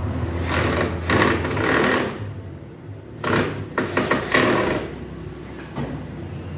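Two bursts of rattling mechanical work noise, each about a second and a half long, over a steady low hum, while a washer-dryer is being reassembled.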